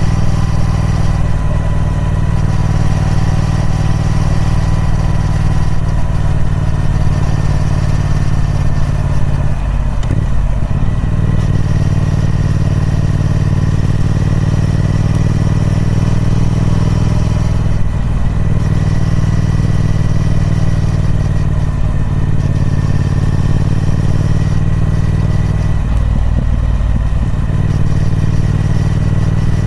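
Triumph Speed Twin 1200's parallel-twin engine running through its stock exhaust at fairly steady revs. The revs dip briefly a few times, as when the throttle is rolled off or a gear is changed.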